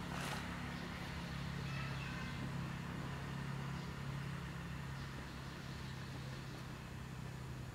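Steady low droning hum of a running motor, with faint outdoor background noise.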